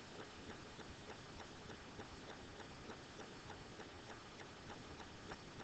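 Faint, irregular light ticks and taps of a stylus on a tablet screen during handwriting, over a low hiss.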